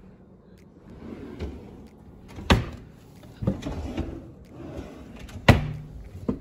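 Kitchen cupboard doors and drawers being opened and shut, with two sharp bangs about three seconds apart and smaller knocks and rattling between.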